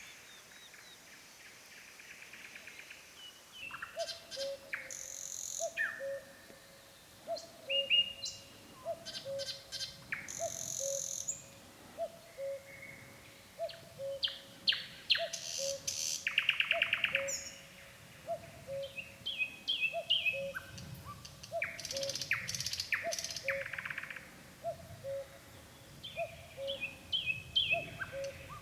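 Nightingale singing in separate phrases of whistles, rapid rattling trills and sharp repeated notes, with short pauses between them. A faint, low two-note call repeats about once a second beneath the song.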